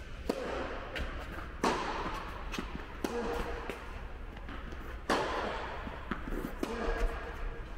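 Tennis rally: a second serve, then rackets striking the ball back and forth. Each hit is a sharp pop with a short echo in the indoor hall, and the two loudest come about one and a half and five seconds in.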